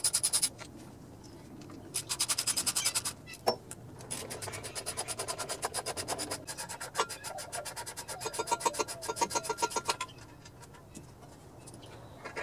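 Ratchet wrench clicking in quick runs as bolts on the mower's engine cover are backed out: a short run at the start, another about two seconds in, and a longer run from about four to ten seconds in.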